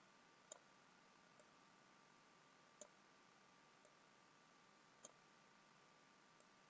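Computer mouse button clicking quietly: three sharp clicks about two seconds apart, each followed by a fainter click, over a faint steady hum.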